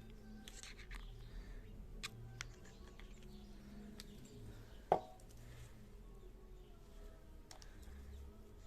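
Faint scattered light clicks with one sharper knock about five seconds in, over a low steady hum.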